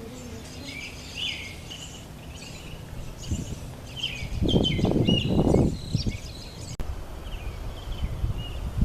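Small birds chirping and calling again and again, with a louder low rumble about four to six seconds in.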